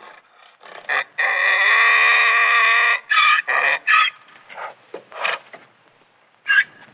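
Donkey braying: one long held call of about two seconds, then several short, quick calls, then a few fainter ones.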